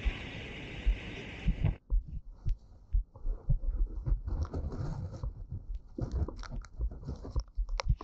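Wind buffeting the camera microphone in irregular low thumps during a tropical-storm strong-wind walk in the rain. A steady hiss of rain and street noise cuts off abruptly about two seconds in, leaving the thumps and a few light crackles.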